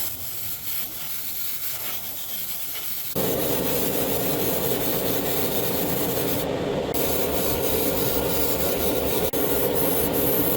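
Steady abrasive rubbing, like sanding, that gets abruptly louder about three seconds in.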